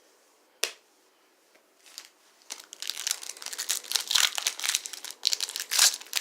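Trading-card pack wrapper being torn open and crumpled in the hands, a dense, rapid crackle starting about two and a half seconds in, after a single sharp click near the start.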